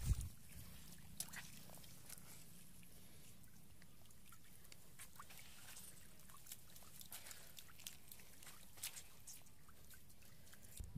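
Faint small splashes and wet flicks of fish thrashing in very shallow muddy water, coming irregularly over a low steady hum, with a louder splash at the very start.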